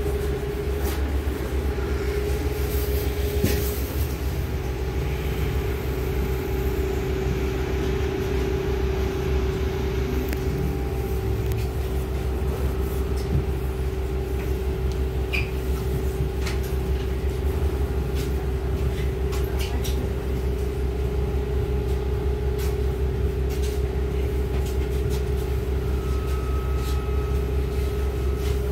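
Inside a Trolza-5265.00 Megapolis trolleybus: a steady electrical hum that holds one pitch, over a constant low rumble, with scattered clicks and rattles from the cabin.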